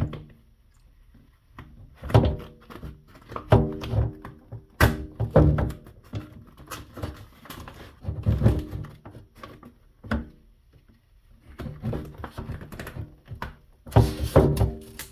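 Skateboard griptape being pulled off the deck by hand, in uneven bursts of ripping and knocking with short pauses between pulls. The adhesive is strong, so the tape comes away with a struggle.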